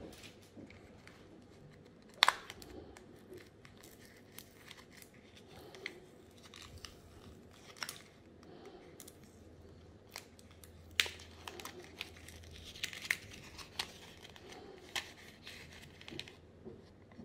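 Paper being peeled and torn by hand, with crinkling and a scatter of sharp clicks and taps. The loudest click comes about two seconds in.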